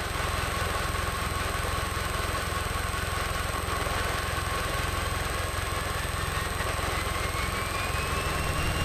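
Piper Cherokee's engine and propeller running at full takeoff power during the takeoff roll, a steady drone. A faint whine rises in pitch over the second half.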